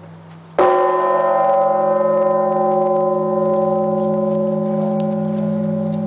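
One stroke of a 7,150 kg church bell about half a second in, struck over the low hum still sounding from the stroke before. After the strike it rings on with many overtones over a low, slowly pulsing hum that fades only gradually.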